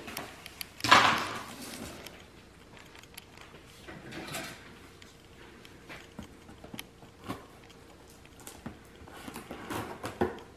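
A cardboard blender box being handled and opened: scattered knocks, scrapes and rustles of cardboard and packaging, loudest about a second in.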